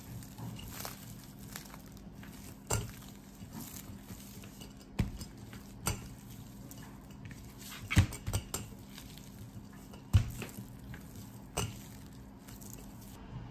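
Wooden rolling pin pressed and rolled over a slab of scone dough wrapped in plastic film on a plastic cutting mat: irregular soft knocks and thumps every second or two, the loudest about eight seconds in, over a faint steady hum.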